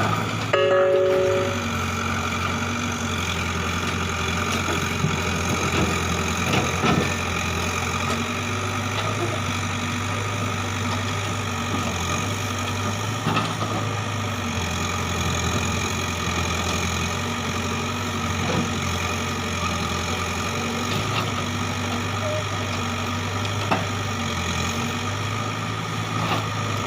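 Backhoe loader's diesel engine running steadily at a low, even speed, with a few sharp knocks and clanks. A short tone sounds about a second in.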